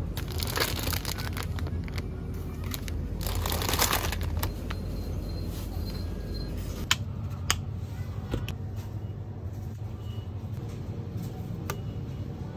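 Plastic snack bag crinkling as it is handled, twice in the first few seconds, over a steady low hum. A couple of sharp clicks come about halfway through.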